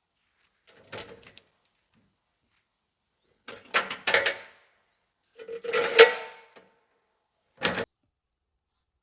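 Four short bursts of knocking and clattering, the loudest a sharp knock about six seconds in.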